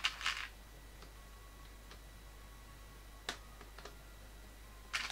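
Plastic LEGO bricks being handled and pressed into place. A short clatter at the start is followed by a few separate sharp clicks, and another clatter comes near the end.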